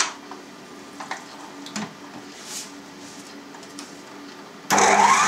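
A few light clicks and knocks as the stand mixer's head is lowered over the bowl. Near the end the electric stand mixer switches on with a sudden loud start, its motor whine rising in pitch as it speeds up to knead the minced beef for sausage.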